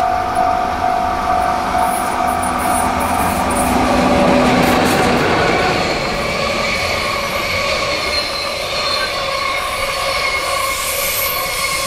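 A JR Freight EF64 electric locomotive passes, with a hum that peaks about four seconds in, followed by a long train of container wagons rolling by. From about six seconds in, the wheels squeal on the curve. A pulsing tone sounds during the first few seconds as the locomotive approaches.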